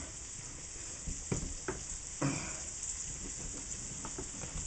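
A small knife scraping across a block of dark chocolate on a wooden cutting board as it is pressed hard and pulled to shave curls. A few sharp scrapes and knocks fall in the first half, over a steady high hiss.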